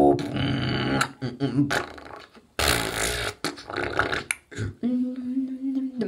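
Teenage beatboxer making mouth percussion: a fast, irregular run of sharp kicks, snares and clicks, with a long hiss about midway. Near the end comes a steady hummed bass note held for about a second.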